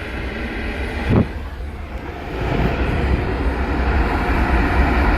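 Jet engine noise from a landing Airbus A380's four engines, a steady low sound that grows louder about two and a half seconds in. A short knock about a second in.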